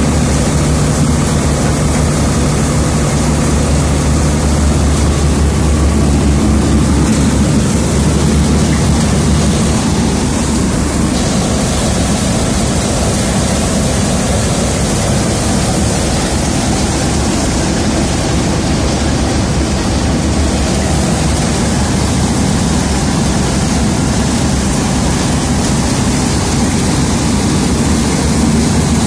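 Grain thresher running steadily while threshing: a loud continuous mechanical drone with a deep hum from its drive, which eases after about ten seconds into a more even rush.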